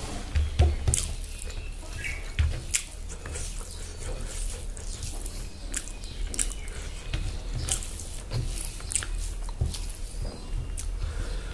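Close-up wet chewing and mouth smacks from a mouthful of rice, with the squish of fingers mixing rice into gravy by hand; many short clicks, a few low thuds in the first second or so.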